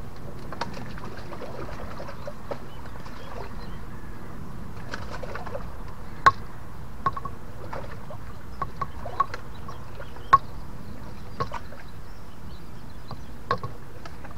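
Steady outdoor background noise with scattered sharp clicks and taps, the loudest about six and ten seconds in.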